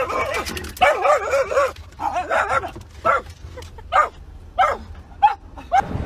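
A dog vocalizing: a run of wavering, warbling howls, then a string of short yips, about one every half second.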